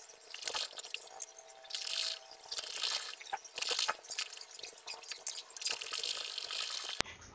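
Quilted fabric rustling and crinkling in irregular bursts as it is handled and shifted under a sewing machine's presser foot, with scattered small clicks.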